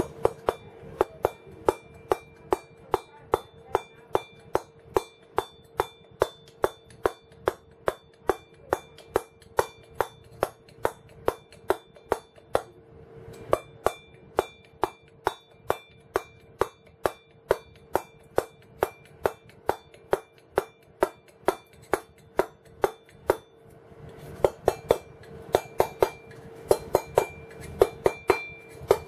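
A round wooden carver's mallet striking a cold steel chisel into stone, in a steady rhythm of about two blows a second. There is a short pause about 13 seconds in, and near the end the blows come less evenly.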